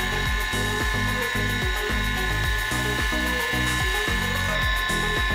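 Background music with a bass line that changes note every fraction of a second, over a steady high whine from the T4 mini table saw's motor running without cutting.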